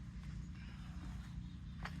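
An engine idling steadily at low speed, with one sharp knock near the end.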